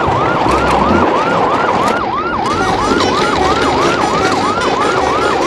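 Siren wailing in a fast yelp, a steady run of short rising whoops at about four a second, over a low thumping.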